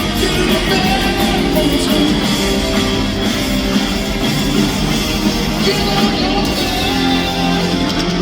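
Live hard rock band playing loudly: electric guitar over bass and drums.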